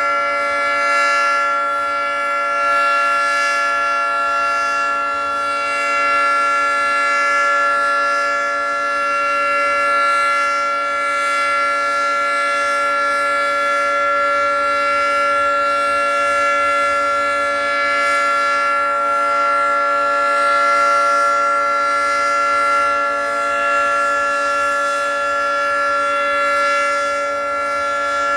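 Federal Signal 3T22 electromechanical tornado siren sounding a steady, unwavering three-tone chord during a test, its loudness swelling and fading slightly.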